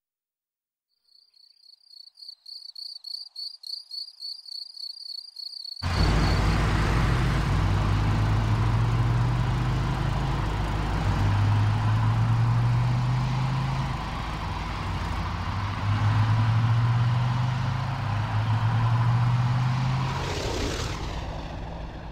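Crickets chirp in a fast pulsing rhythm that grows louder. About six seconds in, a car engine and tyre noise cut in suddenly and loud, the engine's pitch stepping up and down as it runs. A whoosh passes near the end.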